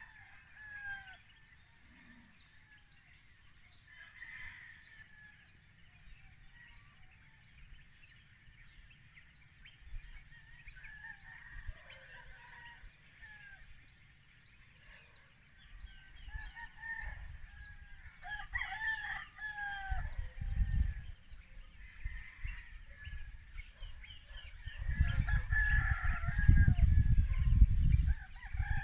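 Rooster crowing and chickens clucking among many small birds chirping. A low rumble comes in about halfway through and is loudest near the end.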